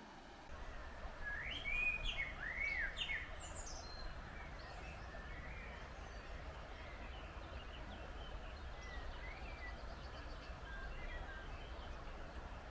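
Small birds chirping, with a cluster of quick rising and falling calls about two seconds in and fainter calls after, over a steady low rumble.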